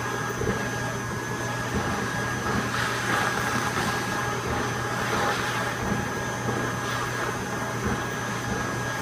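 Build-A-Bear stuffing machine's blower running steadily, its foot pedal held down, as stuffing is blown through the nozzle into a plush toy. It makes a constant hum with a faint high whine.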